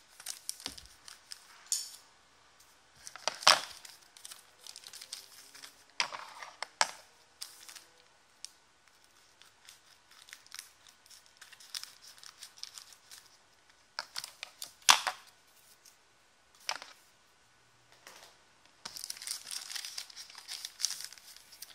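Foil trading-card pack wrappers being handled and cut open with scissors: intermittent crinkling and tearing of the foil, with sharp clicks, the loudest about three and a half seconds in and again about fifteen seconds in, and a longer stretch of crinkling near the end.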